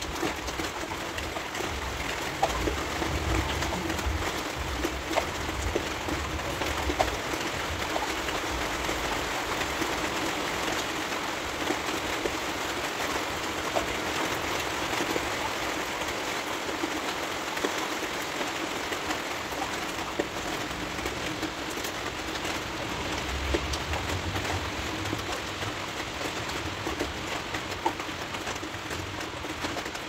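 Steady rain falling on a window pane, a continuous patter with scattered single drops ticking on the glass. A low rumble swells up and dies away twice, a few seconds in and again near the end.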